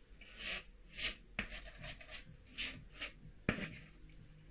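Silicone spatula scraping brownie batter out of a mixing bowl into a lined baking tin: a series of short scrapes, about one every half second, with a single knock about three and a half seconds in.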